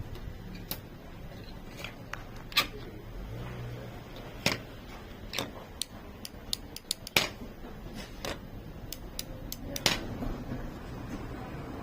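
Irregular sharp clicks and taps of small plastic parts of a car power window switch being handled, about a dozen in all, over a faint steady room hum.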